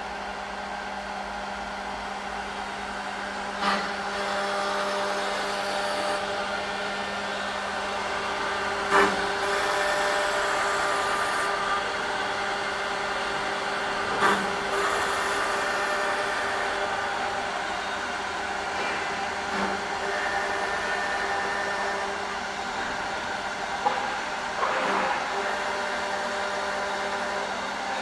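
CNC door lock drilling machine running: a steady motor hum with a sharp knock about every five seconds.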